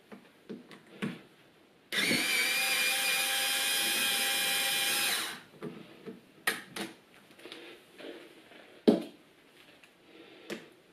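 Small cordless power screwdriver with a hex (Allen) bit running steadily for about three seconds, backing out one of the bolts on a motorcycle engine's starter clutch. A few light clicks and taps of tool and metal come before and after.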